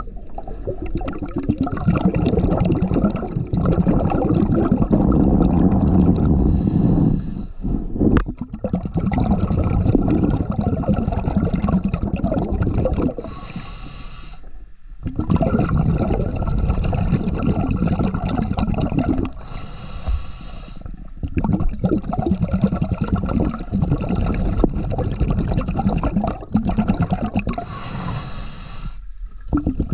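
Scuba diver breathing through a demand regulator underwater: four short hissing inhalations, about six to seven seconds apart, each followed by several seconds of loud rumbling, bubbling exhalation.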